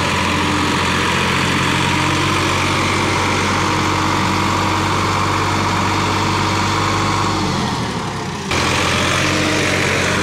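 Sonalika DI 50 RX tractor's diesel engine running steadily under load as the tractor churns through deep paddy-field mud it has got stuck in. The sound breaks off abruptly about eight and a half seconds in and the engine carries straight on.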